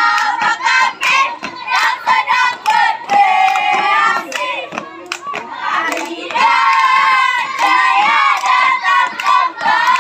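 A group of children chanting and singing a Scout yel-yel in unison, high-pitched voices in loud rhythmic phrases, with sharp claps running through it.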